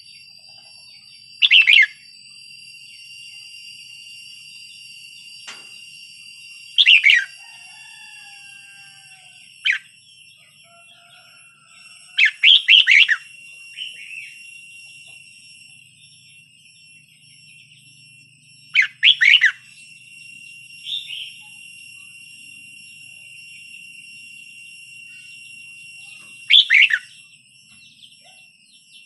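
Red-whiskered bulbul singing short, loud chirpy phrases every few seconds, about six in all, one of them a quick run of three notes near the middle. A steady high-pitched whine runs underneath throughout.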